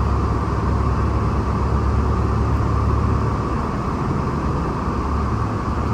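Tour bus driving, heard from inside the cabin: a steady low engine and road rumble.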